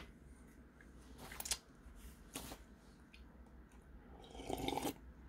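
A man drinking from a glass: a light clink as the glass is picked up, faint mouth sounds, then soft swallowing sounds about four seconds in.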